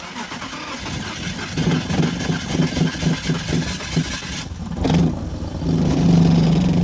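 BMW Z3 six-cylinder engine trying to start and running unevenly with a pulsing beat, then settling into a steadier note near the end. It is misfiring, with the ignition coil from cylinder 6 suspected.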